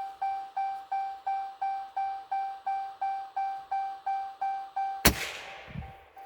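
Vehicle door-ajar chime dinging steadily, about three rings a second. About five seconds in, a single loud gunshot.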